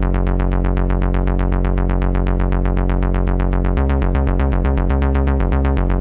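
Eurorack modular synth voice, an Intellijel Dixie II oscillator through a Mutable Instruments Ripples, pulsing rapidly at about ten notes a second on one low pitch. About four seconds in, the pitch starts jumping between notes as switched voltages are added together, forming a melody.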